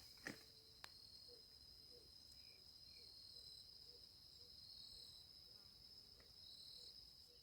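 Faint, steady high-pitched trilling of crickets, with a couple of small clicks in the first second.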